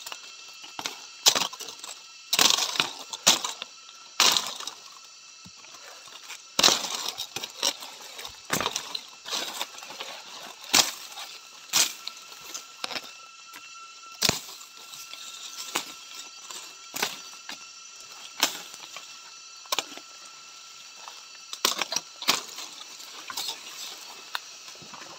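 Dry twigs and leaves crackling and snapping underfoot and against the body as someone pushes through dense forest undergrowth, in irregular sharp cracks. Insects keep up a steady high buzz behind it.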